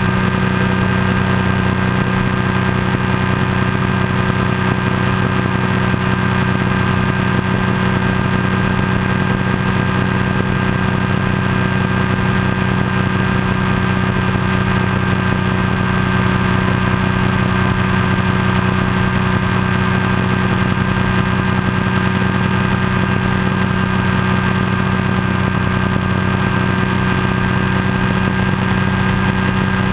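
Ultralight floatplane's engine and pusher propeller running steadily in level flight, holding one unchanging pitch.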